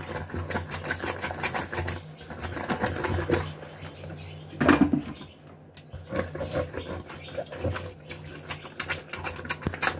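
Lemon halves being pressed and twisted by hand on a metal citrus reamer: repeated rubbing and scraping strokes over a steady low hum, with one louder clatter about halfway through.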